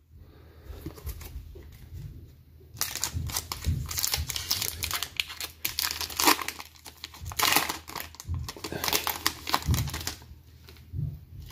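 Foil wrapper of a hockey trading-card pack being torn open and crinkled. The sharp crinkling starts about three seconds in and comes in spurts until near the end, after softer handling at the start.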